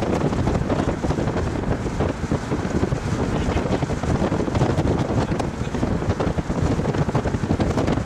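Strong gusty wind buffeting the microphone: a loud, rough, fluttering rumble with no break.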